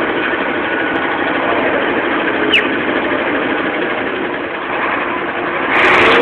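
Heavy engine of an eight-wheeled armoured personnel carrier running steadily. A brief falling squeal comes about two and a half seconds in, and the noise surges louder near the end.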